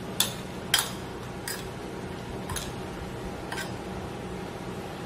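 Metal spoon clinking against a ceramic bowl while mixing seasoned shrimp: about five clinks, the two loudest in the first second, then fainter ones about once a second.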